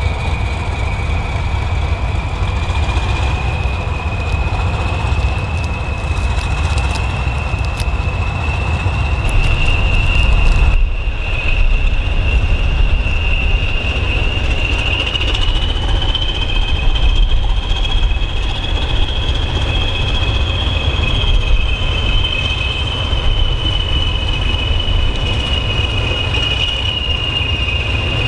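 A pair of Class 20 diesel locomotives running, their English Electric 8SVT engines giving a deep rumble under the high, steady whistle of their turbochargers, which rises slightly in pitch midway.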